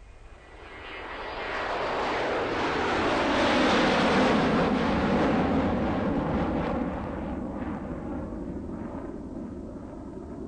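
Table saw running and ripping a pallet slat into 1-inch strips. The noise builds over the first few seconds, is loudest about four seconds in, then slowly eases off.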